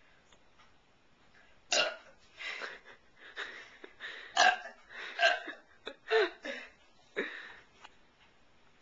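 A run of belches: about seven short, loud burps in quick succession, starting nearly two seconds in and ending shortly after seven seconds.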